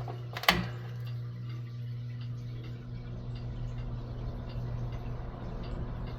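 Vintage Country Aire box fan's Westinghouse electric motor starting up: a sharp click about half a second in, then a steady motor hum with a light, regular ticking. The owner takes the noise as a sign that the motor shaft needs thrust washers.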